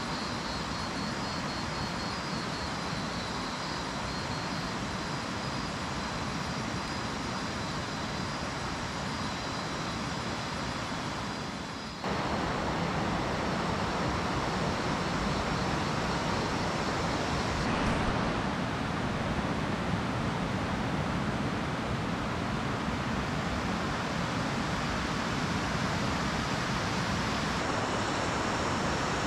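Steady rush of a river flowing over a rocky bed, with a faint steady high tone over it at first. About twelve seconds in, the sound cuts to a louder, fuller rush of water.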